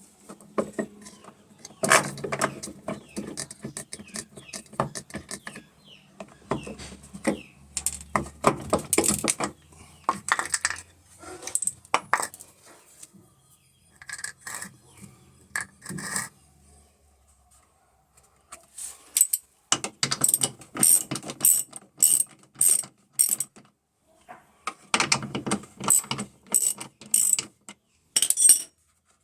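Electrolux LT15F top-loading washing machine making a clattering, ratchet-like clicking noise in irregular runs, with short pauses between them. This is the noise of the machine that is starting to break down.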